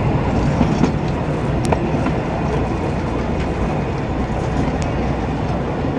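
Narrow-gauge passenger train running along the track, heard from a carriage: a steady rumble of wheels on rails, with a sharp click about two seconds in and another near five seconds.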